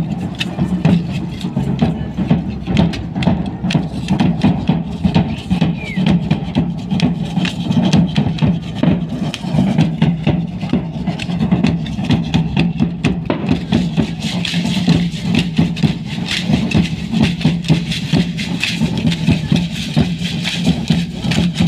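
Music for a traditional Mexican folk dance, with a fast, steady percussive beat. It grows brighter and fuller about two-thirds of the way in, as the dancers start moving.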